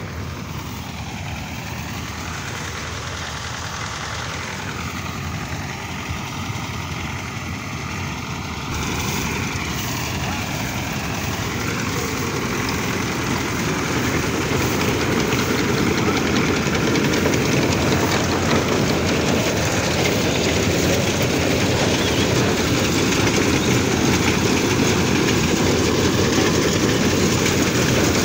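Massey Ferguson combine harvester running steadily, its mechanical noise growing louder throughout, with a jump in level about nine seconds in.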